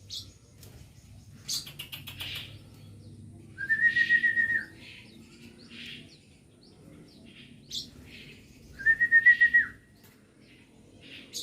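Lovebird chirping, with short sharp chirps scattered throughout and two loud, rapidly pulsing trills, each about a second long, a few seconds apart.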